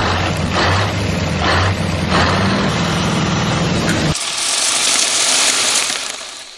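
Truck engine idling with a low rumble and a pulsing hiss. About four seconds in, the rumble stops and a loud, steady hiss of air takes over, fading near the end.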